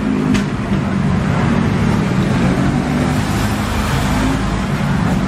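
Steady low rumble of nearby road traffic, with a short sharp click about half a second in.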